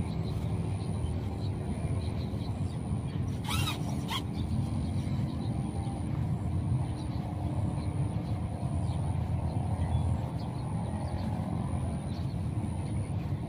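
Steady low rumbling outdoor noise, with a short high warbling sound about three and a half seconds in.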